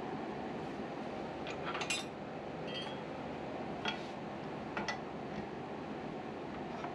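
A wood lathe running steadily, with a few sharp metallic clinks, about four spread through the middle, as a steel turning tool knocks against the tool rest.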